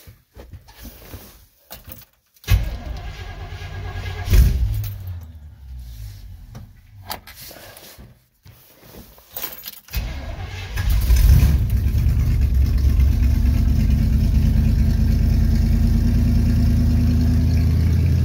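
1971 Chevy C10's 350 small-block V8 cold-starting after months of sitting in freezing weather. It fires about two and a half seconds in, revs once, then runs down and dies. It is cranked again, catches with a rev near the eleven-second mark and settles into a steady idle.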